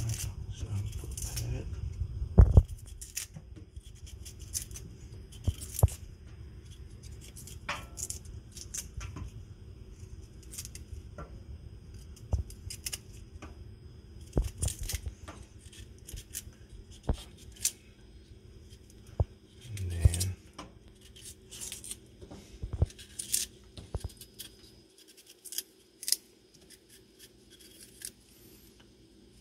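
Small kitchen knife peeling the fibrous skin off a raw broccoli stalk: short, irregular cutting and scraping clicks as strips of skin are pulled away.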